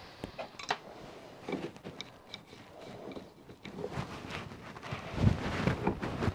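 Metal clinks and handling knocks as an adjustable spanner is fitted to an air-line adapter and tightened onto a bronze steam stop valve, with heavier low knocks about five seconds in.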